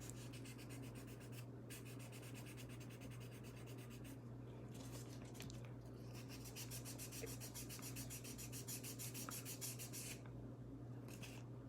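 1000-grit wet sandpaper rubbed back and forth on a Rolex Explorer's brushed steel clasp to sand out a scratch: faint, quick, even strokes in three runs with short pauses between.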